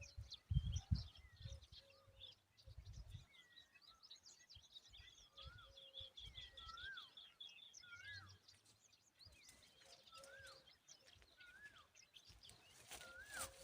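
Faint birdsong: short whistled notes, each rising then falling, repeating about once a second, with a quick run of high notes around the middle. A few low thumps come early on.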